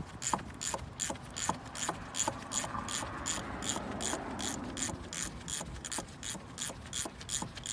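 Hand socket ratchet clicking at an even pace, about three clicks a second, as it turns an E12 Torx socket to back out a bolt on the oil filter housing.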